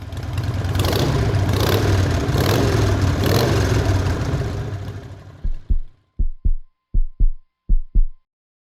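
Edited intro sound effect: a rumbling whoosh swells up and fades away. It is followed by four pairs of deep thumps in a heartbeat rhythm over a faint steady tone, with dead silence between the pairs.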